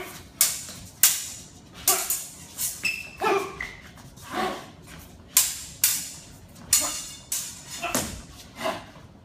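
Stage-combat swords clashing, about a dozen sharp clangs at irregular intervals as the blades strike and parry. A blade rings briefly about three seconds in.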